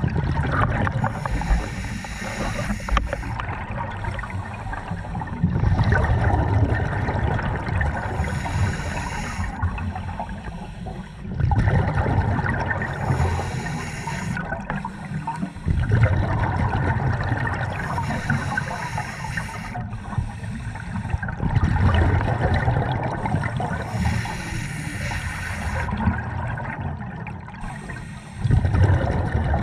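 Open-circuit scuba breathing heard underwater: a rush of regulator exhaust bubbles every four to five seconds, with the water's steady wash between breaths.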